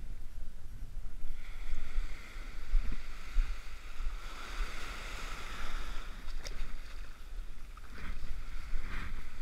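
Small ocean surf washing and fizzing up a sand beach, with wind buffeting the microphone in a low, uneven rumble and a few faint clicks late on.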